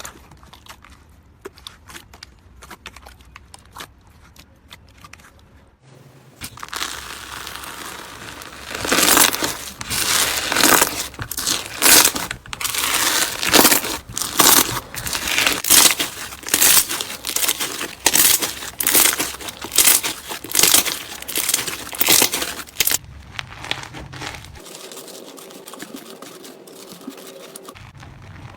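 Slime being worked by hand: sharp crackly squelches and pops, about one or two a second, after a quieter stretch of soft clicking at the start. The noises fade to a quieter stretch near the end.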